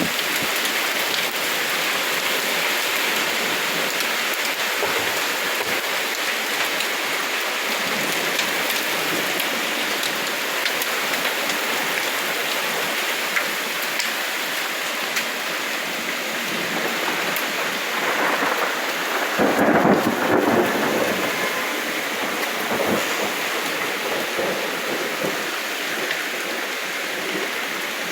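Heavy rain pouring steadily during a thunderstorm, with a louder rumble of thunder about two-thirds of the way through.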